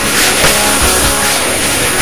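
Rock music with drums and guitar playing at a steady level.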